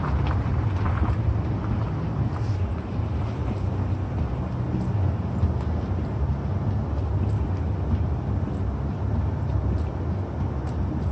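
Car driving slowly on a wet road, heard from inside the cabin: a steady low rumble of engine and tyres, with a few faint ticks.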